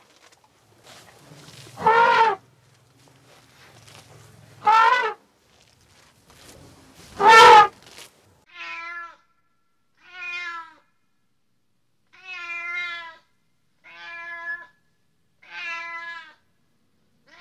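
An animal calling: three loud calls that rise and fall in pitch, then a steady run of six shorter, softer calls about a second and a half apart.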